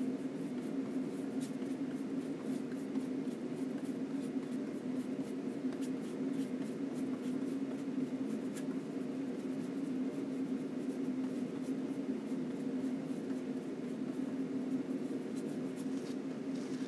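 Steady low hum of room noise, with faint, irregular scratching of a paintbrush stroking oil paint on a linen panel.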